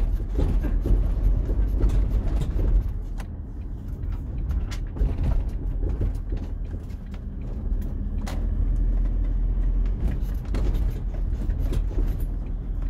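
Ford Transit van's engine and road noise heard from inside the cab while driving, a steady low rumble whose loudness rises and falls, with a few brief knocks.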